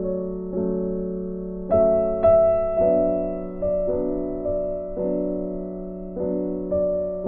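Slow, gentle piano music: chords struck about once a second and left to ring and fade.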